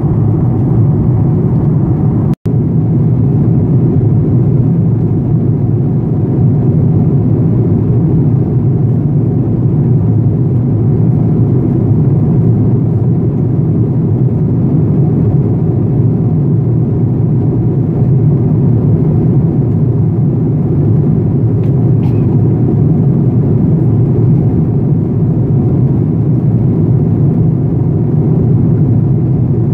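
Steady cabin noise of a jet airliner in cruise, heard from a window seat: the low, even rumble of the engines and the airflow past the fuselage. It cuts out for an instant about two seconds in.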